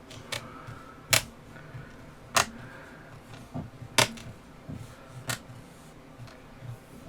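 A series of sharp clicks and taps from plastic Chromebook parts being handled during reassembly. There are about six, the three loudest coming a little over a second, about two and a half seconds and about four seconds in.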